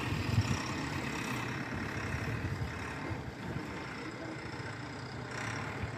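Steady low rumble and hum of a running motor vehicle, with no distinct knocks or changes.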